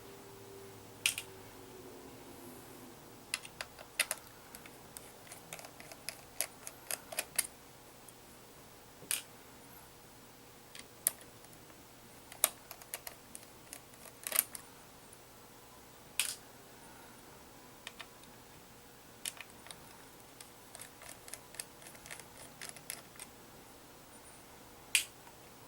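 Small, sharp clicks and taps, irregular and sometimes in quick clusters, from a small Phillips screwdriver working the screws that hold the CPU heatsink in a laptop.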